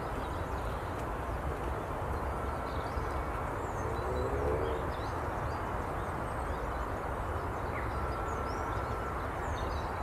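Steady outdoor background of low rumble and hiss, with faint, scattered high bird chirps. A brief low tonal sound comes about four seconds in.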